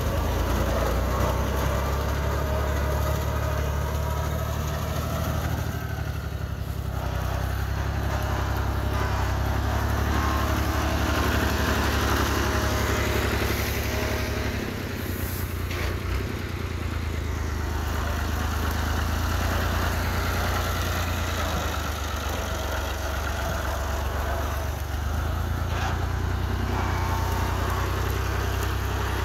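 Farm tractor's diesel engine running steadily at idle, a continuous low hum.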